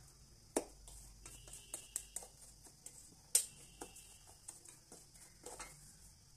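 A wooden spatula scraping and tapping against a stainless steel pan while stirring dry-roasted semolina (rava) that is roasted to a sand-like texture. The scrapes and clicks are irregular, with two sharper knocks, one about half a second in and one just after three seconds.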